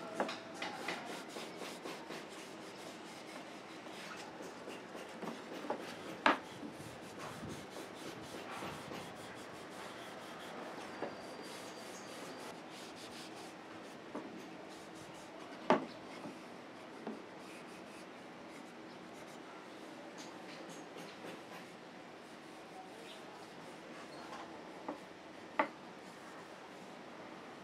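Cloth rubbing a beeswax finish into a wooden block, a soft steady scrubbing, with a few sharp knocks as the wooden piece is handled on the board.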